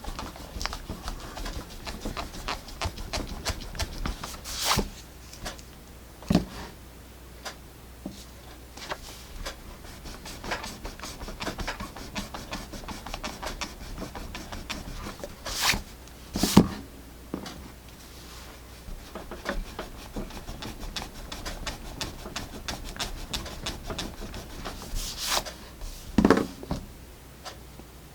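Erasers rubbing graphite pencil marks off paper, with scratchy rustling and small clicks, broken by a few louder knocks as objects are handled on the desk.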